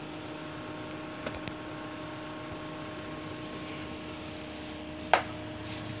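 Steady low hum with a few constant tones, broken by light clicks a little over a second in and one sharp knock about five seconds in.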